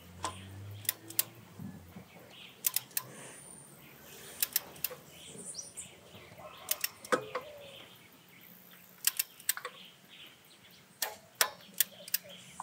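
Ratchet of a click-type torque wrench turning a spark plug socket, giving short groups of sharp clicks every second or two as the last spark plug is tightened.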